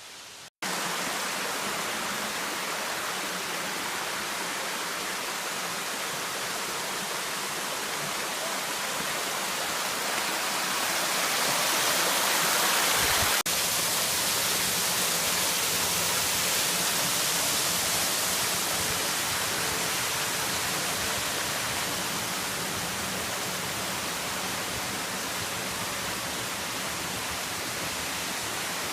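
Steady rushing roar of a mountain waterfall, starting after a brief dropout just after the start and swelling a little louder partway through.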